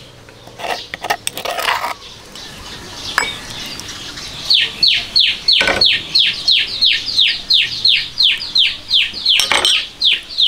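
A bird calling a rapid run of falling notes, about four a second, starting about halfway through and going on to the end. Before the calls start there is a spoon scraping in a mortar, and there are two sharp knocks while the bird is calling.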